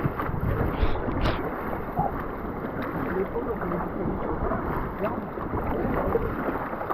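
Steady rush of river water around a moving raft, with a couple of short splashes about a second in.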